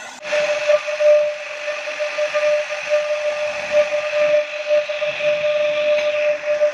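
CNC router spindle running at high speed with its bit cutting wood: a steady high-pitched whine over a hiss of cutting, setting in abruptly a moment in.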